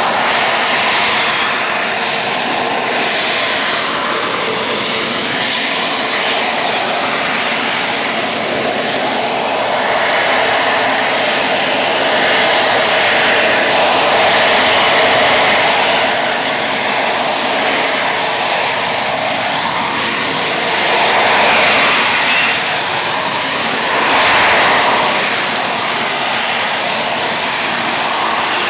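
Aircraft engine noise from a flying display: a continuous rush that swells louder about halfway through and twice more near the end as the aircraft passes.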